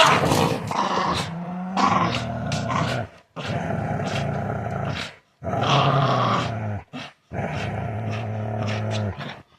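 Dogs growling while playing tug-of-war: long, low, steady growls broken by short pauses about every two seconds.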